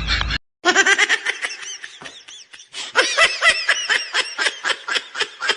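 High-pitched laughter in quick, repeated bursts of 'ha-ha', starting just after a brief break in the sound.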